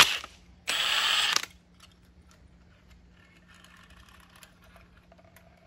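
A sharp click, then a power tool spins a socket for just under a second, backing the threaded plug out over the inlet filter of a John Deere hydraulic pump. Faint metal clicks and rattles follow as the loosened plug and its spring are worked out.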